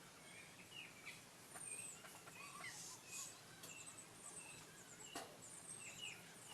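Faint birds chirping in the background, many short high calls and quick falling whistles scattered through.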